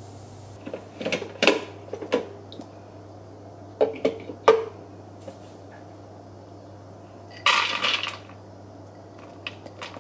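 Kitchenware being handled and set down: a nonstick pan and a food processor's plastic bowl and steel blade. There are a handful of sharp knocks and clinks in the first five seconds, a short rattle about seven and a half seconds in, and a few small clicks near the end, over a steady low hum.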